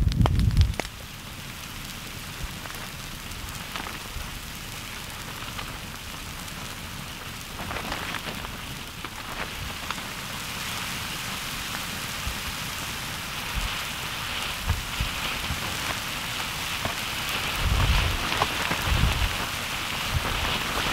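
Steady hiss with scattered small crackles from plants burning where pahoehoe lava is flowing over them, growing stronger about halfway through. A couple of low thumps come near the end.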